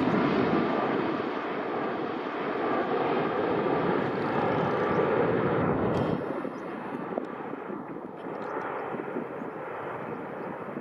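Jet roar of a Boeing 747-400F's four Rolls-Royce RB211 engines as the loaded freighter climbs away after take-off, fading, with its deepest rumble dropping away about six seconds in.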